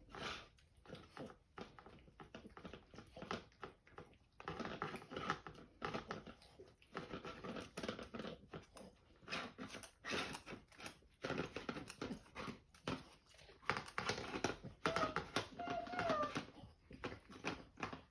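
A pet crunching and chewing food with rapid, irregular crackling and rustling. Two short whine-like tones come near the end.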